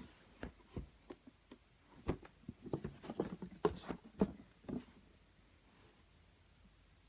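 Irregular light taps, knocks and rustles of packaging being handled, stopping about five seconds in.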